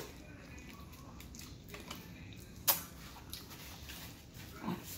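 Close-miked eating mouth noises: a few soft smacks and clicks, one sharp smack about two and a half seconds in, and a short low hum near the end.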